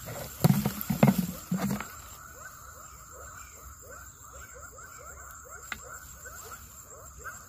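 A chorus of small calling animals: short rising chirps repeated about five times a second over a steady high insect whine. Three loud bumps in the first two seconds.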